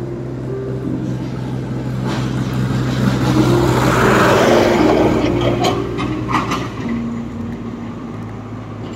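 Background music with held notes, while a passing road vehicle's noise swells to its loudest about four seconds in and then fades. A few sharp clicks come between about five and a half and six and a half seconds in.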